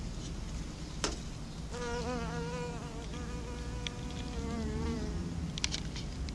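Patchwork leaf-cutter bee (Megachile centuncularis) buzzing in flight: a wavering hum that starts about two seconds in and lasts about three seconds. A sharp click comes about a second in, and a few short clicks near the end.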